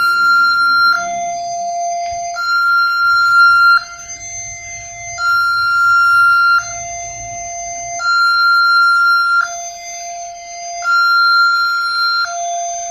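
Railway level-crossing warning siren sounding a two-tone alarm: a high tone and a lower tone alternate steadily, each held for about a second and a half.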